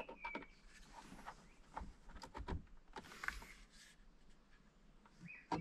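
Faint handling sounds from a Fire Stick plug and HDMI extender cable being fitted at the back of a TV: small scattered clicks and brief rustles of cable and plastic.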